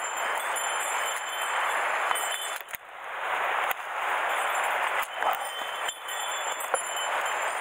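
Leaves and stems rustling and brushing as a person pushes on foot through dense undergrowth. A few sharp snaps and knocks of twigs or the rod are scattered through it.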